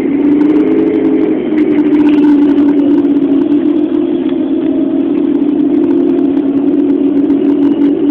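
Volvo Olympian double-decker bus engine and drivetrain running at road speed, heard from inside the bus as a steady droning hum that rises slightly in pitch about a second in.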